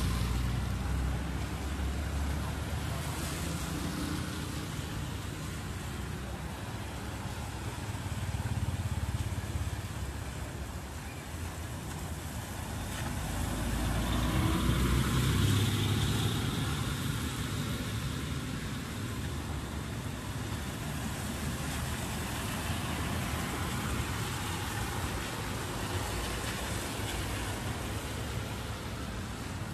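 City street traffic on a wet road: cars and motorbikes passing, their tyres hissing on the wet asphalt. A vehicle passes close and loud about halfway through.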